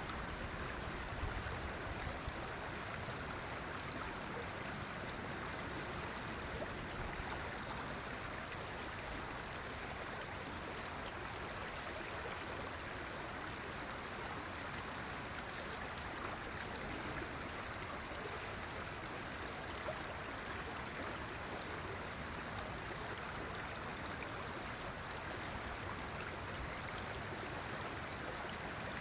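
River water flowing over rocks in a steady rushing and babbling.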